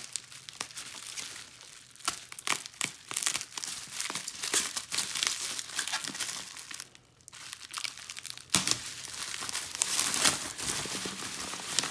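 Plastic bubble wrap crinkling and crackling as it is pulled off and away from a small plastic tub, with a short pause about seven seconds in.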